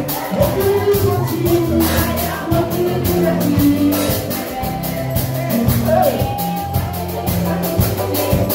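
Upbeat praise music from a church band, with a steady drum beat, a bass line and singing.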